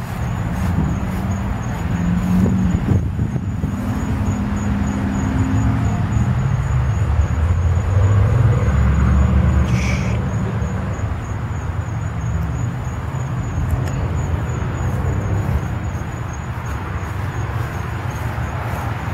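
Road traffic: vehicles passing with a low engine rumble that swells about eight to ten seconds in. A brief higher-pitched sound comes about ten seconds in.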